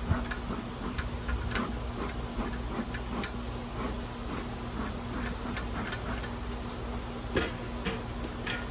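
Bellows bee smoker being handled and puffed over an open hive: scattered light clicks and taps, a couple a second, with one sharper knock about seven seconds in, over a steady low hum.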